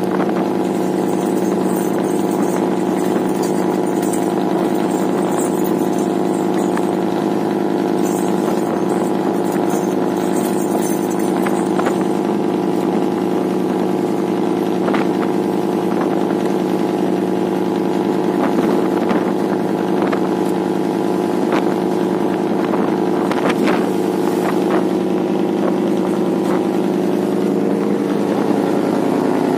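Fishing trawler's engine running steadily while the boat is underway, with water rushing along the hull and a few short knocks in the second half.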